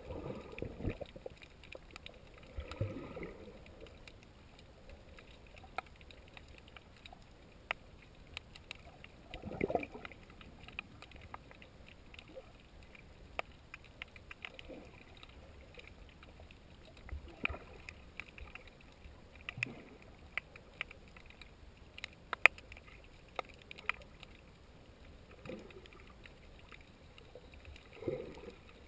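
Underwater ambience picked up by a camera held below the surface: a faint muffled wash of water with scattered sharp clicks and crackles, and a soft whooshing swell every few seconds.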